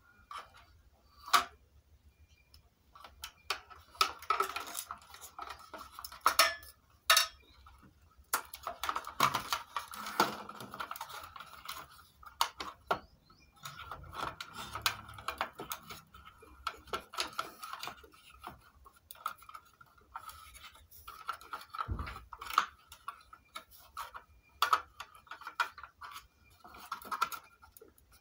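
Hands handling wires and cable connectors on a circuit board in a plastic home-theatre case: irregular small plastic clicks and taps, with stretches of rubbing and scraping between them.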